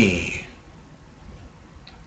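A man's word trailing off in the first half-second, then quiet room tone with a single faint click near the end.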